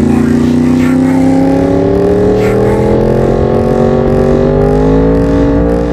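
Yamaha R1 sport bike's inline-four engine pulling under throttle, its pitch rising slowly and evenly through the revs.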